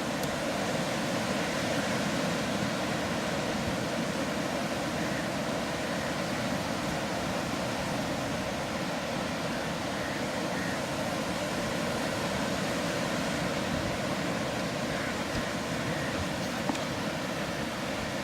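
Steady noise of sea surf and wind, with no breaks or rhythm.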